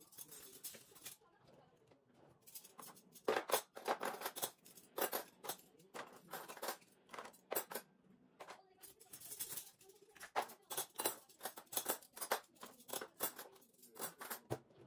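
Metal cutlery clinking and rattling as handfuls are lifted from a dishwasher's cutlery tray and dropped into a drawer organizer: a quick, irregular run of sharp metallic clinks, busiest about three seconds in and again over the last few seconds.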